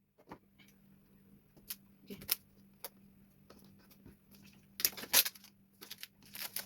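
A phone's retail box and its packaging being handled and opened by hand: scattered light clicks and taps, with louder scraping, rustling bursts about five seconds in and again near the end.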